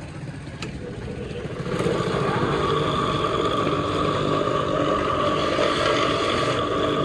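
A power tool's electric motor starts about two seconds in and runs steadily with a high whine.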